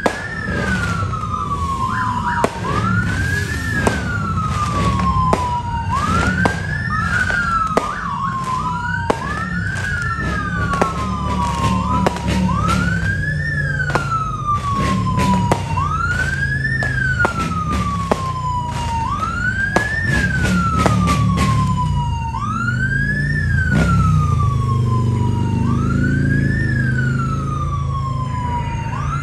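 A police siren wails, rising and falling about every two seconds, over the low rumble of vehicle engines. Through the first half, a rapid string of sharp firecracker pops cuts across it, and an engine revs near the end.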